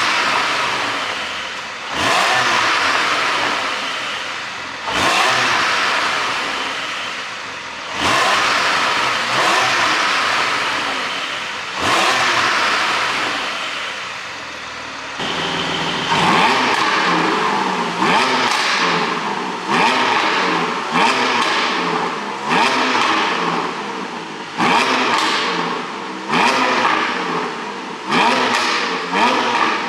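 Porsche 718 Boxster GTS 4.0's flat-six engine revved in repeated throttle blips through Milltek link pipes: every two or three seconds at first, then about once a second from halfway on, with the revs sweeping down after each blip. Pops and crackles come on the overrun from the pop-and-crackle ECU tune.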